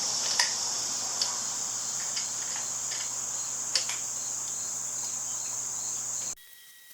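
A steady, high-pitched chorus of crickets, with a few faint clicks over it. The sound cuts off abruptly to near silence near the end.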